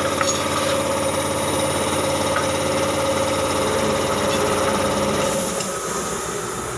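A machine running steadily with an even, motor-like drone that eases slightly near the end.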